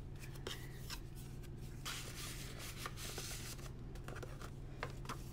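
Soft paper rustling and rubbing as the pages and paper tags of a handmade journal are handled and slid in and out of pockets, a scatter of short faint scrapes over a steady low hum.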